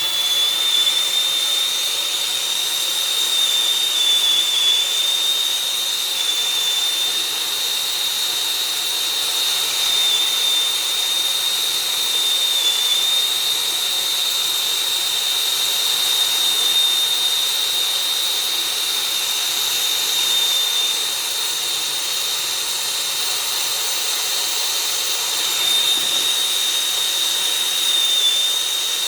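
Brazing torch burning steadily with a loud hiss and a high whistle held through it, while a Schrader valve fitting is brazed into the copper suction line of an evaporator coil.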